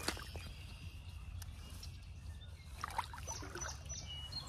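Shallow water sloshing lightly around an angler's wader-clad legs as he stoops to let a smallmouth bass go, with a small splash right at the start.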